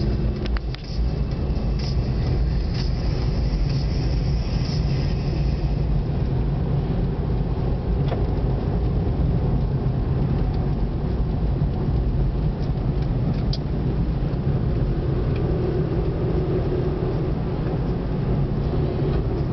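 Steady engine and tyre noise of a car, heard from inside its cabin while driving, a low even rumble.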